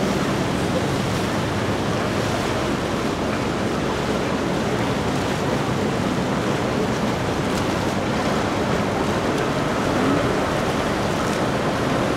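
Steady rush of sea water and wind: an even noise with no distinct events.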